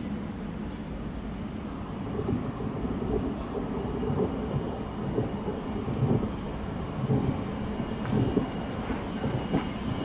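Passenger train running on the rails: a steady low rumble with uneven knocks and clatter from the wheels, getting a little louder about two seconds in.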